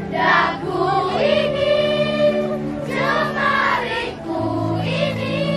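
A choir of school students singing together in phrases with long held notes, over steady low accompanying notes.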